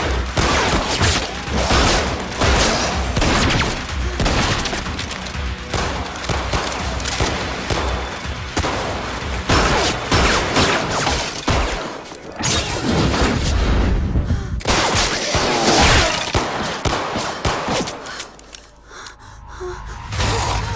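Film action soundtrack: rapid gunfire and sharp impacts over a music score, dropping to a brief lull near the end.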